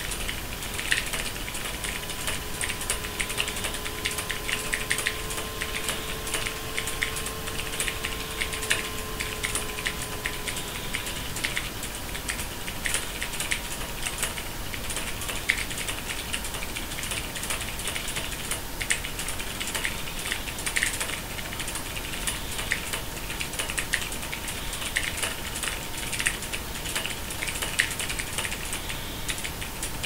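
Fast typing on a mechanical keyboard with Gateron optical switches: a rapid, uneven stream of key clicks with occasional louder strokes.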